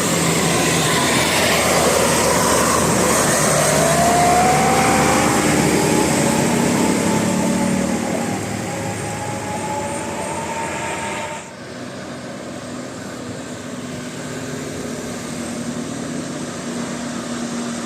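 A bus driving past with engine and road noise and a whine that rises slowly in pitch over several seconds. The sound drops sharply about eleven seconds in, leaving quieter steady traffic noise.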